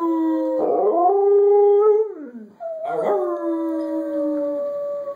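Alaskan Malamute howling: long drawn-out howls one after another, each held and then sliding down in pitch, with a short break about two and a half seconds in.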